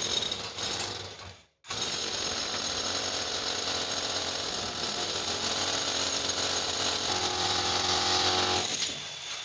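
An electric motor-driven machine starts about a second and a half in and runs steadily for about seven seconds with a mechanical rattle, then stops near the end.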